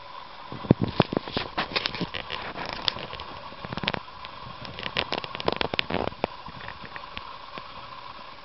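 Dwarf hamster scrabbling through wood-shaving bedding and into a glass sand-bath jar: irregular light crackles and scratches, coming thickest in the first half.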